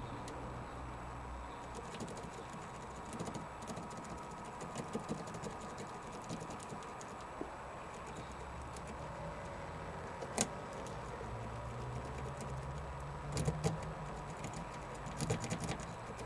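Lock pick and tension tool working in a Renault Scenic's car door lock as it is picked: scattered small metallic clicks and scrapes, one sharper click about ten seconds in and bunches of quick clicks near the end, over a faint steady hum.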